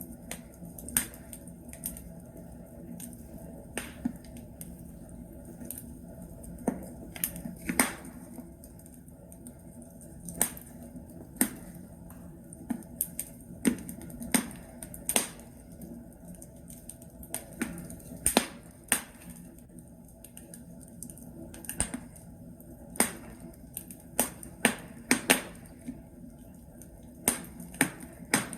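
Logs burning in a fireplace, crackling with sharp irregular pops over a low steady hiss.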